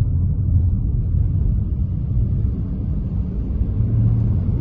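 Steady low road and engine rumble inside the cabin of a moving Mercedes-Benz car.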